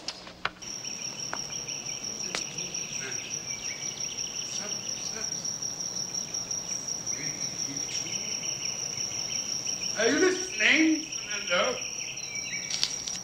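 Insects trilling with a steady high-pitched tone that starts about half a second in and holds. About ten seconds in, a brief run of sliding, voice-like sounds.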